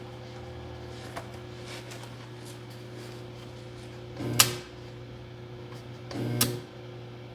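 Welding machine humming steadily, with two short louder bursts about four and six seconds in, each with a sharp click.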